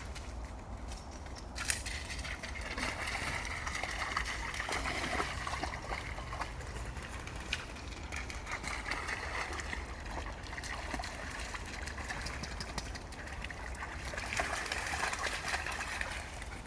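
Creek water running and splashing as two dogs, a Labrador and a golden retriever, wade and play in it, with many small splashes. A steady low rumble lies underneath.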